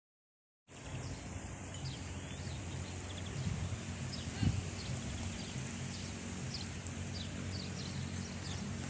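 Outdoor ambience cutting in abruptly under a second in: small birds chirping in quick, repeated short calls over a steady low rumble.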